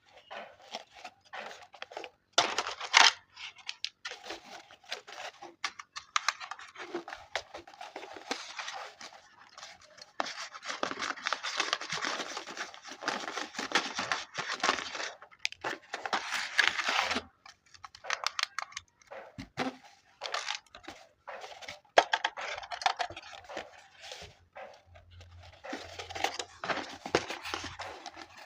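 Irregular crinkling, tearing and clicking of plastic and cardboard toy packaging being handled and opened, busiest through the middle and again near the end.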